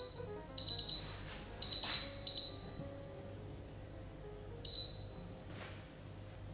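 Teka induction hob's timer alarm beeping: several clusters of high, shrill electronic beeps signalling that the set cooking time has run out. The beeping stops, and one more short beep follows a little before five seconds in as the touch control is pressed to clear the timer.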